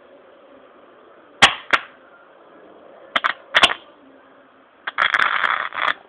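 Sharp pops of hydroxy (HHO) gas bubbles from a home-made electrolysis cell igniting: single pops about 1.5 and 2 seconds in, a quick cluster of three or four around 3 to 4 seconds, then about a second of dense crackling near the end.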